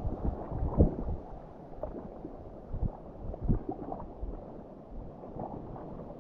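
Low rumbling wind on the microphone mixed with sea water sloshing, with a few dull knocks about a second, three and three and a half seconds in.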